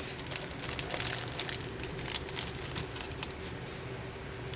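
Light, irregular clicking and rustling of small plastic connectors and wires being handled while front-panel connector plugs are pushed onto motherboard header pins.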